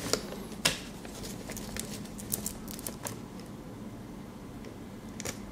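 Handling of modular power-supply cables and their plastic connectors: a few soft clicks and light rustles, the clearest about two-thirds of a second in.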